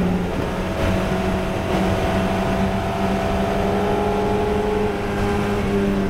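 In-car sound of a 1969 Macon MR7 Formula Ford's 1600 cc Ford Kent four-cylinder engine, running hard at high revs at close to 100 mph. The engine pulls steadily and its pitch rises slowly, with a brief dip just after the start. Open-cockpit wind and road rush sits underneath.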